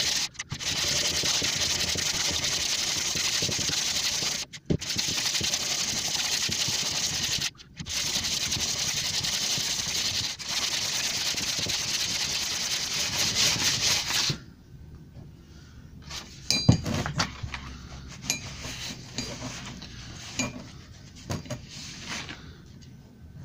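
Planer knives, clamped in a wooden holder, rubbed back and forth on 240-grit abrasive paper on a flat steel table to sharpen them: a steady gritty scraping with a few brief pauses. It stops about 14 seconds in, giving way to quieter handling clicks and knocks.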